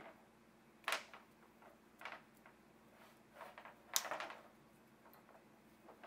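Plastic MC4 assembly wrenches clicking against an MC4 connector as its cap nut is screwed tight: a few separate clicks, the sharpest about four seconds in.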